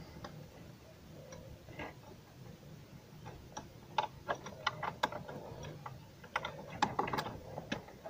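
Ratchet wrench clicking in short, uneven runs as a 16 mm bolt on the gearbox mount bracket is tightened, sparse at first and busier from about halfway. The bolt had worked loose, the cause of the knocking and growl on hard starts.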